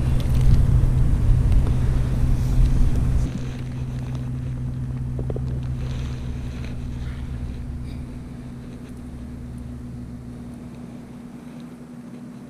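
A steady low mechanical hum. For the first three seconds heavy rumble on the microphone lies over it, and then it cuts off sharply.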